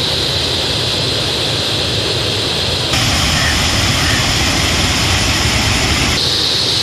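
Rushing floodwater pouring over a weir on a foam-covered river in spate, a loud steady roar. Its tone shifts about three seconds in and again near the end.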